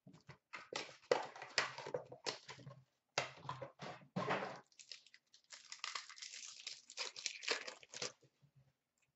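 Paper-and-foil trading card pack wrapper being torn open and crinkled by hand, in irregular rustling bursts that stop about eight seconds in.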